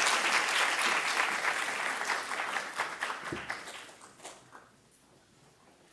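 Audience applauding, many hands clapping at once; the applause dies away about four seconds in, leaving a few last scattered claps.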